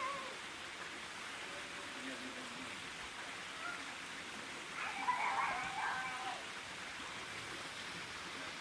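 Steady rushing of a waterfall and its stream. A distant voice calls out briefly about five seconds in.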